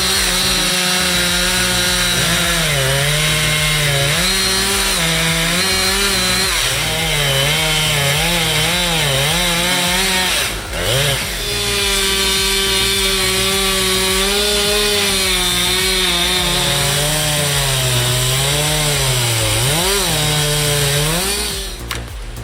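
Chainsaw engine cutting through wood under load, its pitch repeatedly dipping and recovering as the chain bogs in the cut. It pauses briefly about ten seconds in, then cuts again, and drops off near the end.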